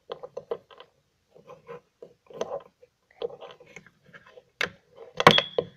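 Quick, irregular mouth-made chewing and munching noises, a child pretending that a toy is eating, with two sharp knocks near the end.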